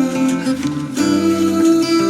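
Background music led by acoustic guitar, with held notes and a change of chord about a second in.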